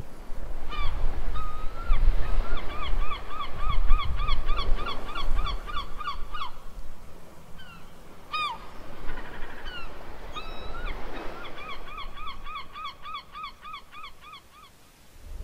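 Gulls calling: two long calls, each opening with a few drawn-out notes and running into a rapid series of about four notes a second, over a low rumble.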